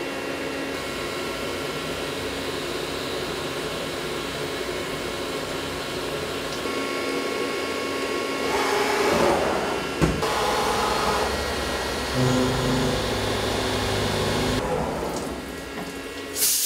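Steady hum of a CNC milling machine running, with several fixed tones. It changes about halfway through, with a noisier stretch, a sharp click and then a lower hum. Just before the end comes a loud hiss of compressed air.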